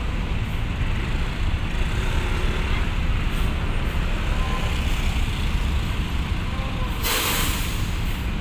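Mercedes-Benz coach's diesel engine running with a steady low rumble as the bus rolls slowly off a ferry ramp, with one sharp hiss of air-brake air released about seven seconds in.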